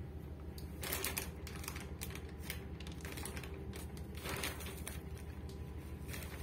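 Plastic wrapping on a packaged piece of lifeboat gear crinkling and rustling in short, irregular bursts as it is handled, over a steady low hum.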